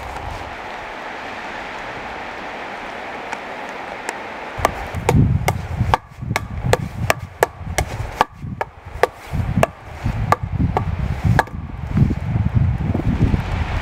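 A steady hiss, then from about five seconds in a quick run of sharp wooden whacks, about three a second, for some six seconds: wood being struck hard, as in chopping or beating a tree.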